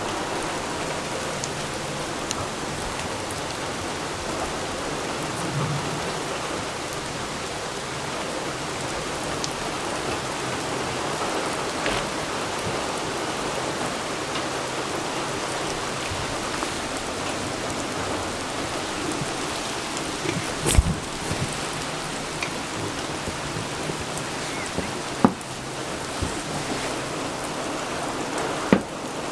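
Steady rain falling, heard from inside a wooden goat shed, with a few sharp knocks in the last third.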